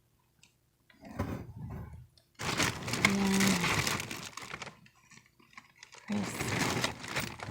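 Packaging rustling and crinkling as produce is handled and lifted out of a delivery box, in three bursts. The longest and loudest runs from about two and a half to four and a half seconds in.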